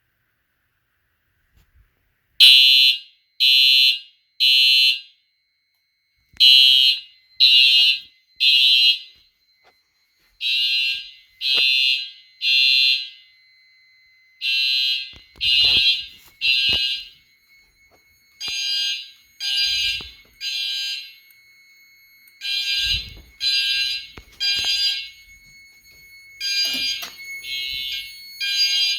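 System Sensor TrueAlert fire alarm horn starts sounding about two seconds in, set off by a smoke detector test. It gives loud, high-pitched blasts in groups of three, each group repeating about every four seconds: the temporal-three evacuation pattern.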